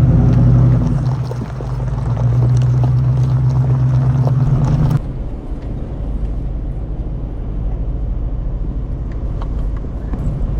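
Off-road vehicle driving a rough dirt trail: a steady engine drone under load, which cuts off suddenly about five seconds in to a quieter low rumble of the drive with scattered small knocks and rattles.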